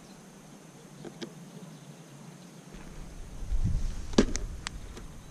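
Low rumbling handling noise, then a few sharp clicks a little over four seconds in as a hand grabs the plastic body of a Hubsan H501S quadcopter.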